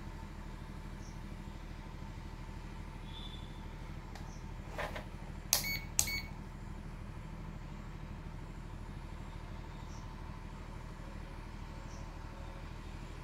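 Digital multimeter's rotary selector dial being turned: a few short sharp clicks around the middle, the loudest two about half a second apart, over a steady low electrical hum.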